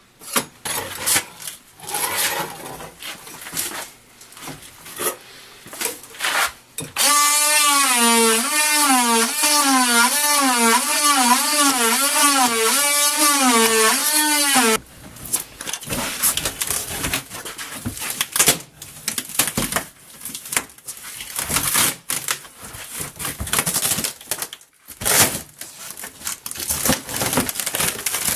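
Oscillating multi-tool with a flush-cut blade cutting through the camper's wooden cabinetry. It buzzes loudly for about eight seconds, its pitch wavering up and down about every 0.7 s as the blade bites. Before and after the cut come scattered knocks and clattering as the panels are handled.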